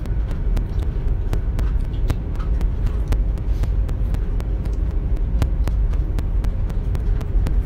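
Steady low rumble and hum of a high-speed train heard from inside the passenger cabin, with faint regular clicks about four times a second.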